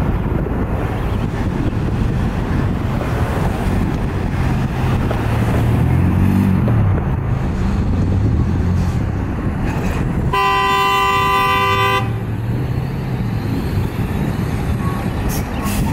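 A fire truck's horn gives one steady blast of about a second and a half, around ten seconds in. Heavy engine and traffic noise runs underneath, with an engine's pitch rising and falling in the middle.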